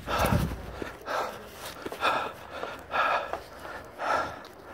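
A runner breathing hard through his mouth, about one loud breath a second, out of breath after a long run.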